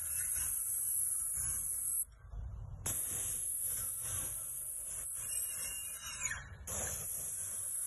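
Paint spray gun hissing as it sprays a wooden fence, in long spurts: the trigger is let go about two seconds in and again about six seconds in, each time for under a second.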